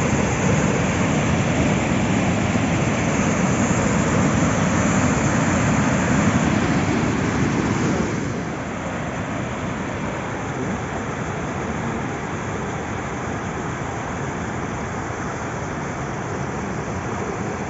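Steady rush of the Kivach waterfall on the Suna River. About eight seconds in it becomes a little quieter and duller.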